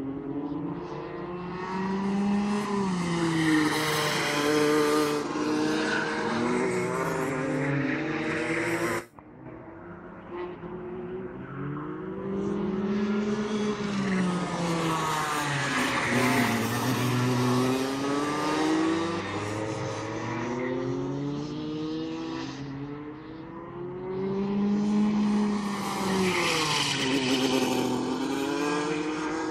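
Rotax two-stroke kart engine revving hard and falling back again and again as the kart lapping the track accelerates out of corners and brakes into them. It grows louder as the kart passes, three times, with a sudden break about nine seconds in.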